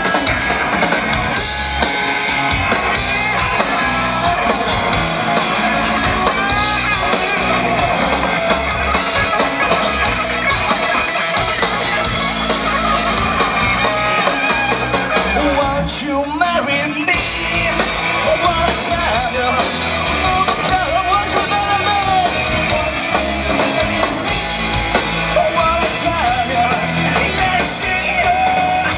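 A rock band playing live, with electric guitar, bass guitar and drum kit under a singer's voice. The band breaks off for about a second around the middle, then comes back in.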